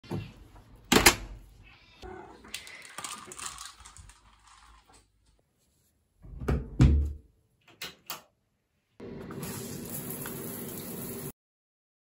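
A house door being handled: a sharp latch click, rustling and small clicks as it opens, then a loud thump as it is pushed shut, followed by two light clicks of the latch. After that a steady hiss runs for a couple of seconds and cuts off suddenly.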